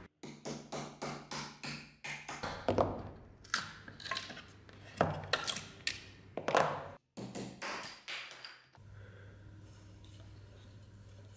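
Wood and steel knocking on a steel workbench as a dagger and wooden handle blanks are handled: a quick run of light taps in the first two seconds, then a string of louder knocks and clinks with a short ring. A low steady hum takes over for the last two seconds or so.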